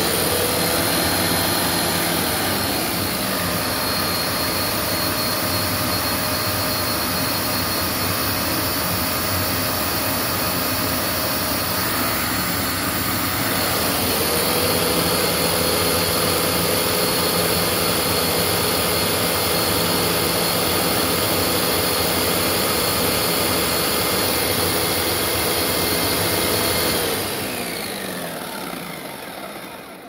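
Hoover WindTunnel V2 upright vacuum cleaner's suction motor starting up and running steadily at full speed. About halfway through the sound shifts and grows slightly louder. Near the end it is switched off and winds down.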